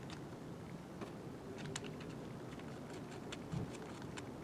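Light clicks and taps of hands handling and fitting the plastic side cover of a chainsaw. There is a sharper click about two seconds in and a dull knock near the end, over a steady low background noise.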